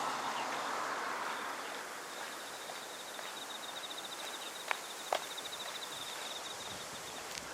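An insect trilling in a fast, even, high-pitched pulse over a steady background hiss, with two sharp clicks about five seconds in.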